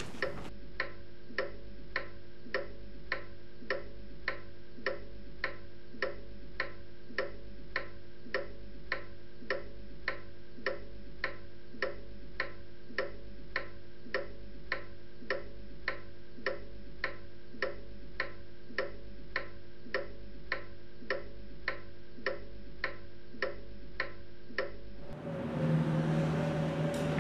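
Pendulum wall clock ticking steadily, about two ticks a second, over a steady low hum. About two seconds before the end the ticking gives way to a louder room noise.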